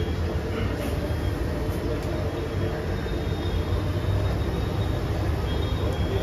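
Steady low rumble of city street traffic, with a few faint tones running through it.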